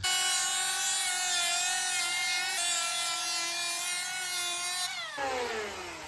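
Electric hand planer running under load as it shaves down the wooden edge of a door: a steady high whine with a hiss of cutting. About five seconds in, the trigger is let go and the motor winds down with a falling whine.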